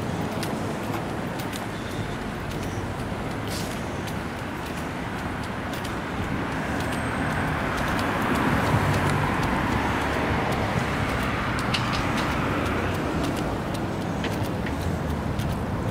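Road traffic: cars driving by, with one passing close about halfway through, its tyre noise swelling and then fading.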